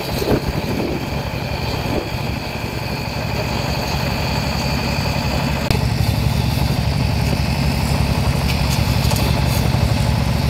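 An engine running steadily at an even, idle-like speed, with no change in pitch.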